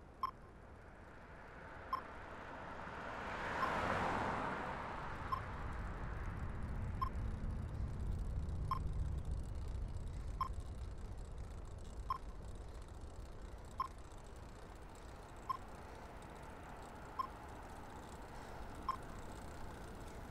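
A short electronic beep repeating evenly about every 1.7 seconds, over a passing vehicle that swells to a whoosh about four seconds in and is followed by a low engine rumble that slowly fades.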